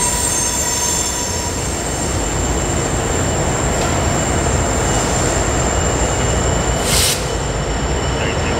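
Norfolk Southern diesel-electric locomotives rumbling past at low speed, with a steady high-pitched whine or squeal over the engine sound. A short hiss comes about seven seconds in.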